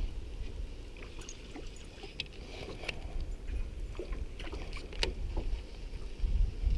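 Gentle water movement with scattered light clicks and knocks over a low rumble.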